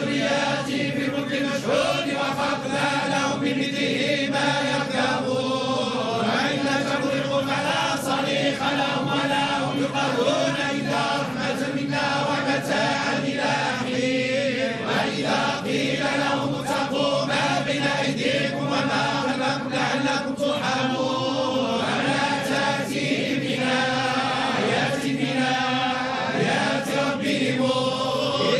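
A group of men chanting together in unison, Islamic religious chant held in long, slowly moving lines without pause.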